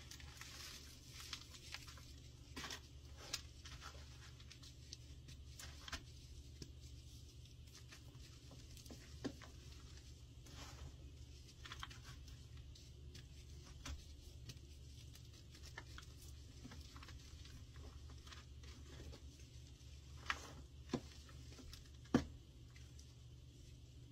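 Hands crumbling and squeezing a dried block of gym chalk and baking soda under a dry cornstarch crust: soft crunching and powdery patter, with sharp little cracks now and then as pieces break, the loudest three close together near the end.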